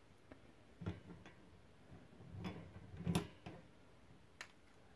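Small metal parts of a Shimano 3CC three-speed coaster-brake hub clicking and clinking against each other as the brake arm and the parts behind it are worked off the axle by hand. There are several separate sharp clicks, the loudest about three seconds in.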